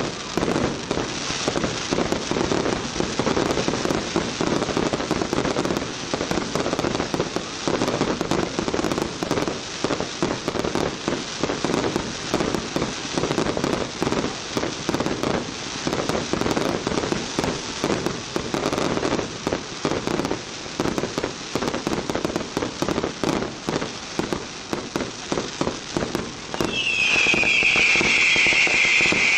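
Fireworks display: a dense, continuous crackle of bursting shells and pops. Near the end a loud, high whistling tone sets in and holds, falling slightly in pitch.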